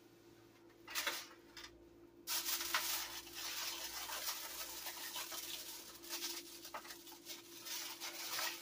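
Aluminium foil crinkling as it is pressed and crimped tightly over the rim of a baking pan: a brief rustle about a second in, then steady crackling from about two seconds in.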